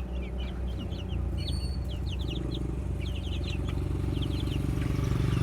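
A small engine running steadily and growing louder towards the end, with baby chicks peeping in many short high chirps over it.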